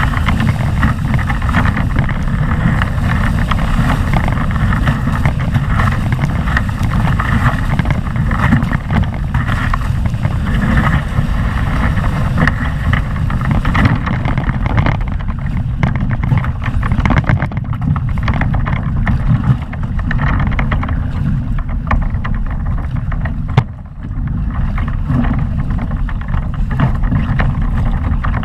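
Wind buffeting the microphone of a camera mounted on a Windrush 14 catamaran sailing fast in strong wind, with water and spray rushing past the hulls. The spray hiss is heavier in the first half and eases about halfway through, and there is a brief knock and dip near the end.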